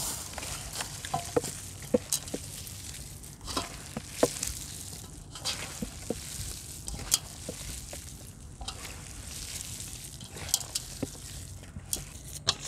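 Hands kneading raw lamb mince in a stainless steel bowl: wet squishing and squelching, broken by irregular short sharp smacks as the meat is squeezed and slapped down.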